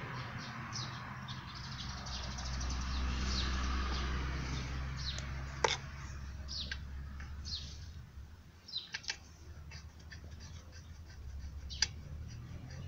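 Small birds chirping repeatedly in short, falling notes over a low rumble that fades about two-thirds of the way in. A few sharp metallic clicks stand out, the loudest about halfway through and another near the end, as a T-handle spark plug wrench is worked on a brush cutter's two-stroke engine.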